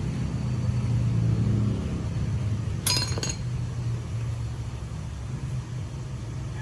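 Steady low mechanical rumble, with one sharp metallic clink about three seconds in that rings briefly.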